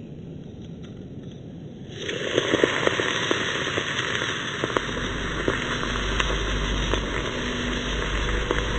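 Molten metal poured from a crucible into a pomegranate set in snow, hissing and crackling sharply as it hits the wet fruit and snow. The hiss starts suddenly about two seconds in, and a low rumble joins underneath about halfway.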